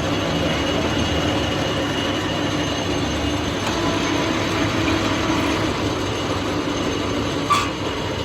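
Metal lathe running steadily with a mechanical rumble and a whine, and a sharp click near the end.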